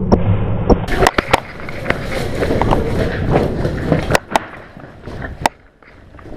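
Airsoft rifle shots: sharp cracks, a quick burst of three about a second in and single ones later, over rustling movement noise.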